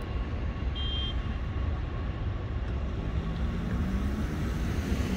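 Steady low rumble of city traffic mixed with a departing electric commuter train, with a brief high-pitched tone about a second in. From about three seconds in, a road vehicle's engine note rises as it accelerates.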